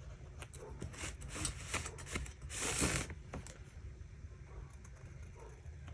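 Bold felt-tip marker scratching across watercolour paper in a run of short strokes, with one longer, louder stroke a bit over two and a half seconds in.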